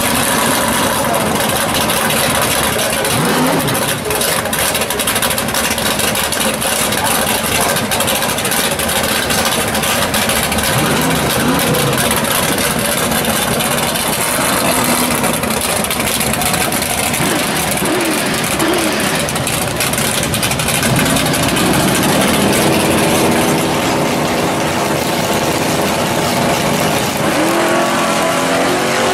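Loud drag-race car engines running at the strip, with a dense roar of exhaust throughout. Near the end an engine revs up, climbing in pitch as a car launches.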